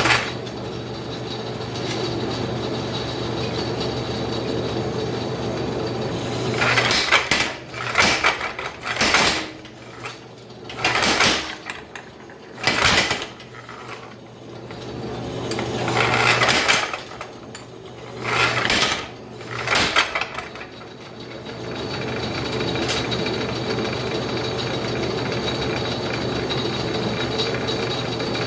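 Power hammer's motor running with a steady hum, broken by about eight short bursts of hammer blows on a flatter, each a second or less long, in the middle of the stretch.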